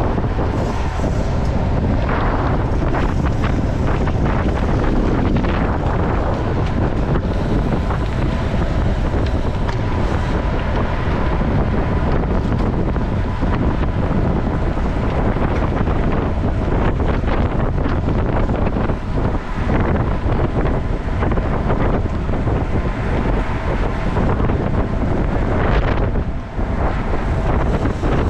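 Steady, loud wind buffeting the microphone of a camera on a gravel bike ridden at race speed, with one brief dip near the end.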